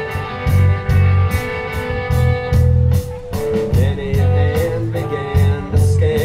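Live rock band playing: a steady drum beat, bass and electric guitar, the guitar holding a sustained chord at first. A man's lead vocal comes in about halfway.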